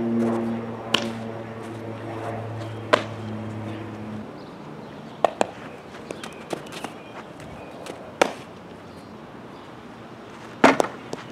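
Sharp cracks of a softball during a ground-ball fielding drill, from the bat and the ball smacking into a leather glove, a few seconds apart, with the loudest crack near the end. A steady low hum holds through the first four seconds and then cuts off.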